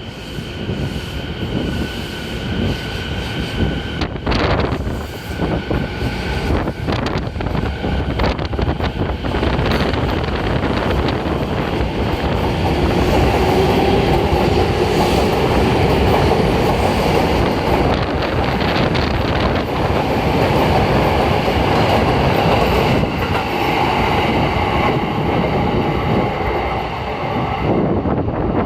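Rinkai Line 70-000 series electric train pulling out and picking up speed, its wheels clacking over rail joints. About half way through, a rising whine from the drive comes in.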